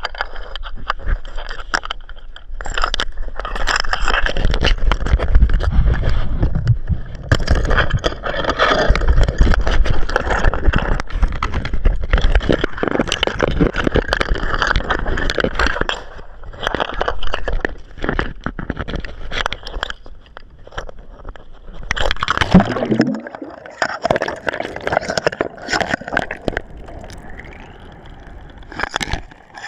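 Sea water splashing and sloshing over an action camera's microphone with a heavy low rumble as the camera floats at the surface after being dropped overboard. About 23 seconds in the low rumble drops away and the sound turns thinner and muffled as the camera sinks, leaving faint underwater gurgling and crackle.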